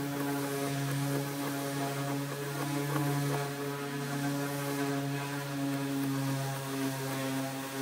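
Steady, even machine hum with a low drone and several higher tones above it, unchanging throughout.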